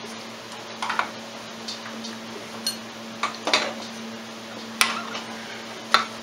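Metal clinking and knocking as the splined stub of a Polaris Sportsman's front CV axle is worked into the wheel bearing in the steering knuckle: a few sharp separate clinks, the loudest two near the end, over a steady low hum.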